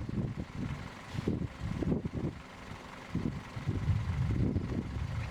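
Gusty wind buffeting the microphone: an uneven low rumble that swells and drops.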